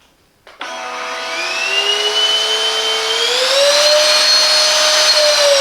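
Silvercrest cordless cyclone handheld vacuum with its wet-mop head switched on with a click about half a second in, then running with a loud, high motor whine that climbs in pitch and steps up to a higher speed about three seconds in.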